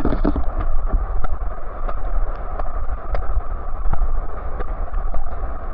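Steady rush of fast-flowing water with a heavy low rumble of wind buffeting the microphone.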